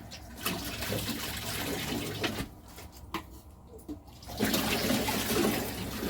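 Water running or pouring in a steady rush, stopping for about two seconds in the middle and then starting again.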